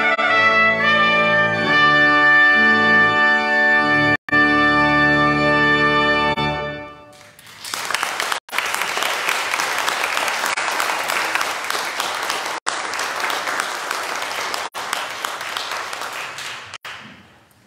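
Trumpet with organ accompaniment playing the closing notes of a piece, ending on a held chord about seven seconds in; then audience applause that fades out near the end. The recording drops out for an instant several times.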